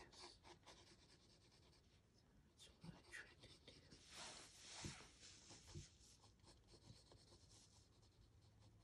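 Faint scratching of a graphite pencil on sketchbook paper: short shading strokes, busiest around three to five seconds in.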